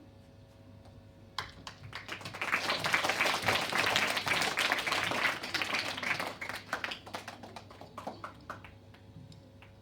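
Audience applauding: clapping starts about a second and a half in, swells to a full round, then thins to scattered claps and stops near the end.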